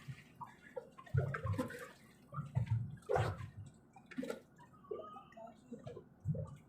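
Water splashing and sloshing, with irregular low thumps and knocks about once a second.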